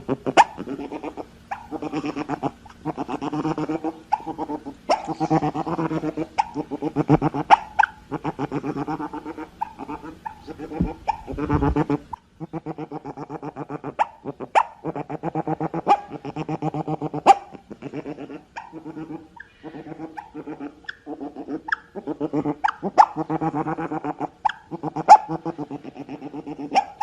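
Otters calling: long runs of rapid, repeated pitched calls, with sharp clicks scattered through them.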